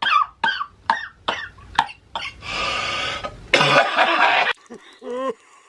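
A person coughing: a quick run of short voiced hacks, then a long rasping breath and a louder, harsh drawn-out cough about three and a half seconds in.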